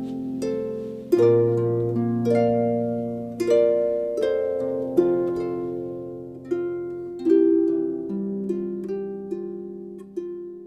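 Background music: a slow plucked-string melody, each note struck sharply and left ringing, growing quieter toward the end.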